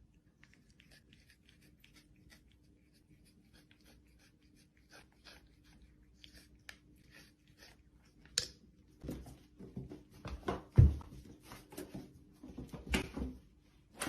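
Near silence for about eight seconds, then scattered clicks, scuffs and knocks, with a low thump about eleven seconds in.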